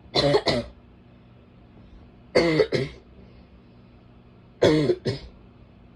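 A woman's barking cough, coming in three bouts about two seconds apart, each a quick double cough.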